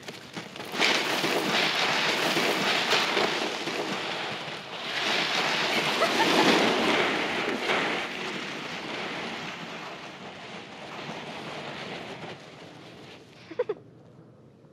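Wind blowing in gusts, swelling to its strongest about halfway through and dying away before the end.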